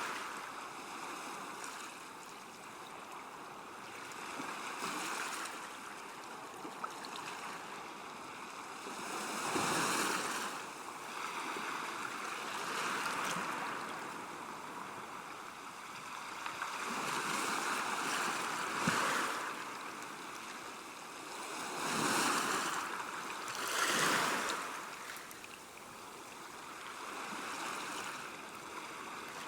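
River water washing against the bank: a steady rushing hiss that swells and ebbs every few seconds, like small waves lapping.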